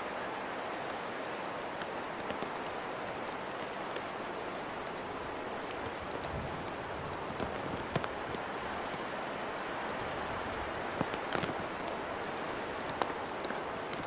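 Steady rain falling, an even hiss with scattered sharper drop hits landing on a surface.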